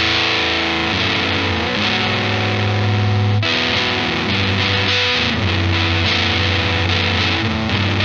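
Electric guitar played through a Death By Audio Apocalypse fuzz pedal on its War Fuzz setting: heavily fuzzed, sustained notes and chords, with a new chord struck about three and a half seconds in.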